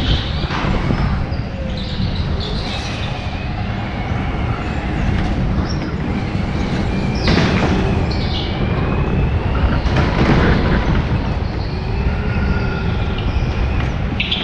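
Indoor rental go-kart running at racing speed, heard from a camera mounted on the kart: a steady, loud rumble with a faint wavering whine, and short louder rushes of noise near the start, about halfway and about two-thirds through.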